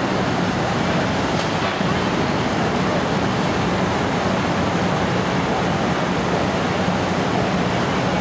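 Steady rush of water falling down the walls of the 9/11 Memorial's waterfall pools, an even unbroken roar.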